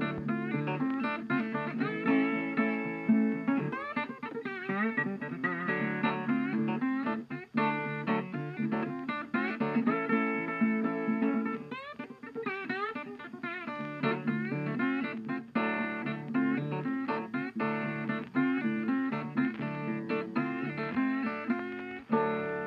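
Background music: plucked guitar playing an instrumental tune.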